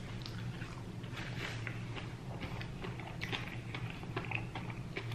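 Soft eating and food-handling sounds: small, irregular clicks and light chewing as fingers pick at a burrito, over a steady low hum.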